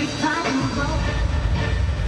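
Dance music for a halftime dance routine, with a heavy bass line that comes in about half a second in.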